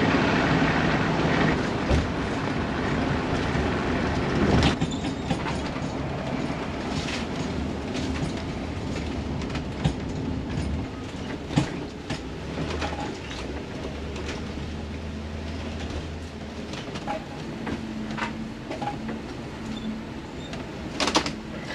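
Class A motorhome driving, heard from inside the cab: a steady engine and road drone with frequent clicks and knocks from the coach as it rolls along.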